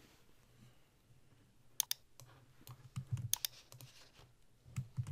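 Computer mouse clicking: two short sets of sharp clicks about a second and a half apart, each a quick double tick, over a faint low hum.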